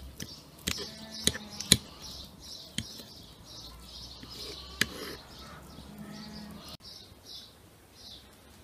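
Metal fork clicking and scraping against a wooden cutting board as boiled chicken leg meat is pulled off the bone, with a few sharp clicks in the first five seconds. Birds chirping in the background.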